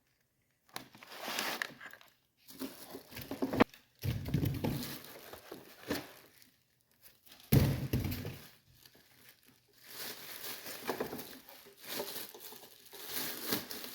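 Packaging being handled during an unboxing: irregular crinkling and rustling with a few knocks and thuds as parts are moved and set down, the heaviest thud about seven and a half seconds in.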